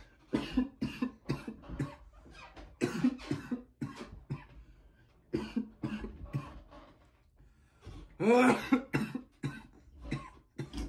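A man coughing in a long fit: clusters of harsh coughs every second or two, with the loudest bout about three quarters of the way through.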